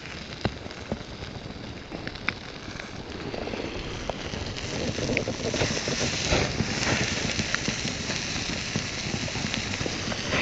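Open campfire crackling, with scattered sharp pops over a steady hiss that swells a little louder about halfway through.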